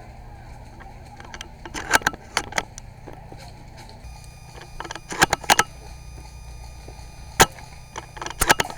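Airsoft gunfire: sharp snapping shots in short clusters, about two seconds in, about five seconds in, a single loud shot a little after seven seconds, and another quick cluster near the end.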